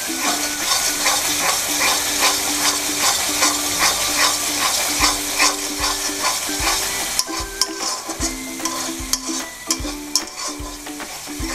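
Masala paste of ground cashew and poppy seed sizzling in oil in a metal kadai while a metal spatula stirs and scrapes it without pause, with many short scrapes against the pan. The paste is being fried down (kosha), stirred constantly so it does not catch on the bottom.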